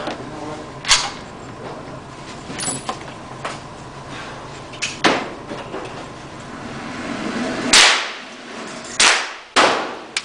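Gunshots on a shooting range: about five sharp reports, spaced unevenly, the loudest a couple of seconds before the end.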